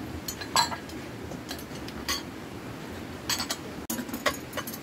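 Utensils clinking against rice bowls during a meal: a scatter of short, sharp clinks at irregular intervals, the loudest about half a second in.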